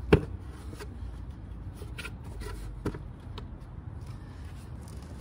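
Advanblack stretched plastic side cover being pulled off a Harley-Davidson Electra Glide's frame by hand: a sharp snap just after the start, then light plastic clicks and rustling, with a second knock near three seconds, over a low steady rumble.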